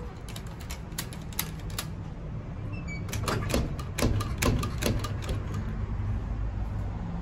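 Locked aluminium-and-glass double doors rattling and clacking against the lock as the pull handle is tugged. A few sharp clicks in the first two seconds, then a quicker run of clacks between about three and five seconds in.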